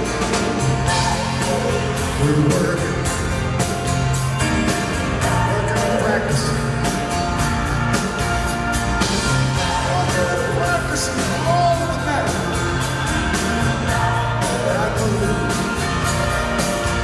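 Live band music: a man singing over strummed acoustic guitar, bass and a drum kit with regular cymbal hits, recorded from among the audience.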